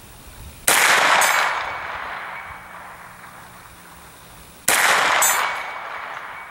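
Two shots from a 9mm AR-9 pistol with an 8-inch barrel, about four seconds apart, each trailing off in a long echo.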